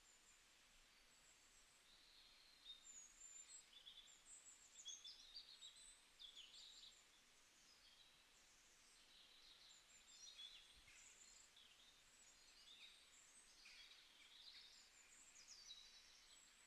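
Faint birdsong: several birds chirping and trilling in quick, high notes throughout.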